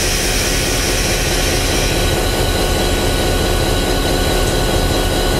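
EMD GP-series (Geep) diesel-electric locomotive engine running steadily, heard from inside the cab with a deep rumble and a constant drone.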